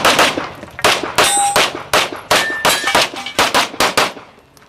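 Rapid pistol shots in quick strings, more than two a second, with steel targets ringing out as they are hit. The shooting slackens near the end.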